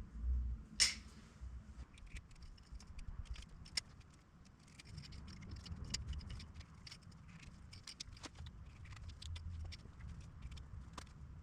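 Scattered light clicks, snips and scratches of wire and hand tools being handled while building a vehicle wiring harness, with one sharper click about a second in.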